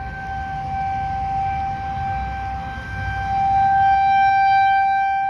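Outdoor tornado warning siren sounding a steady held tone, growing louder about three and a half seconds in as it sweeps toward the listener. It is sounding for a tornado warning.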